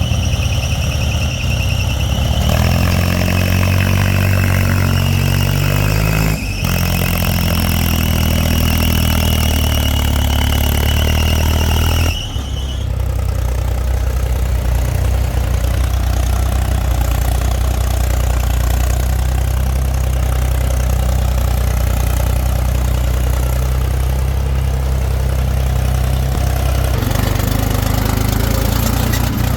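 Heavy earthmoving machine's diesel engine running, its note shifting with load. A high steady whine sits over it for about the first twelve seconds, then the engine settles into a steadier, lower note.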